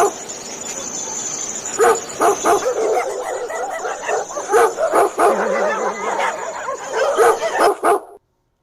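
Dogs barking and yipping over and over in quick succession, cutting off suddenly near the end.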